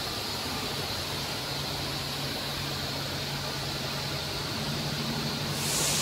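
Steady hum and hiss of a 3 kW fiber laser cutting machine running. A louder hiss breaks in about five and a half seconds in.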